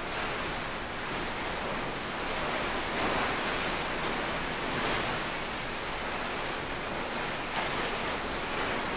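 A steady rushing noise, like air or surf, that swells and eases gently every second or two.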